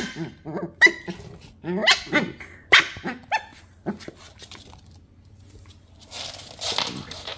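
Shiba Inu dogs, an adult and a puppy, play-fighting: a quick run of sharp barks, yelps and growls over the first four seconds. A rustling scuffle follows about six seconds in.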